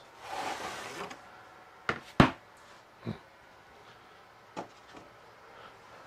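Wooden box and jig pieces being handled on a workbench. A scraping slide comes first, then a few sharp wooden knocks; the loudest two come close together about two seconds in.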